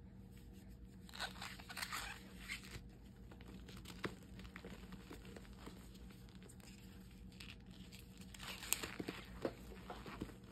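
Reformed gym chalk blocks crushed and crumbled by hand into loose powder, making crackly crunches. The crunching comes in two spells, a second or so in and again near the end, with a single sharp crack in between.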